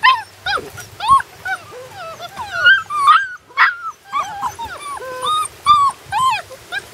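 A litter of Great Dane puppies whining and yipping, several at once, in a continuous stream of short overlapping cries that rise and fall in pitch.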